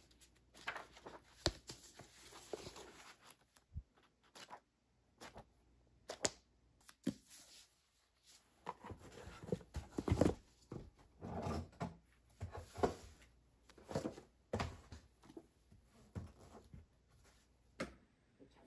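Hardcover books and a cardboard box being handled: irregular rustling and scraping with light knocks and a few sharper taps.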